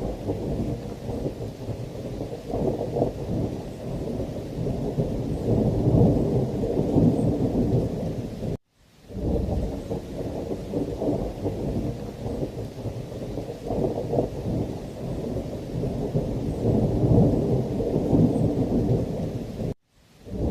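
Thunderstorm ambience: heavy rain with deep, rolling thunder rumbling on and off. The sound cuts out to silence twice for a fraction of a second, once about a third of the way in and once near the end.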